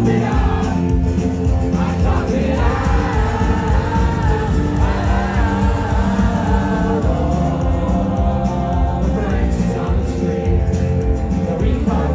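Live indie rock band playing a song at full volume, with guitars, bass and drums under sung vocals.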